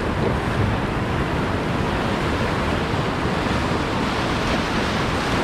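Surf breaking and washing through the shallows, a steady rush of white water, with wind buffeting the microphone.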